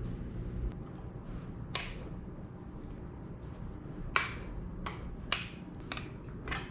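Sharp, irregular metal clicks and taps, about seven in all, as small engine parts are handled and set down during a small-block V8 teardown, over a low steady hum.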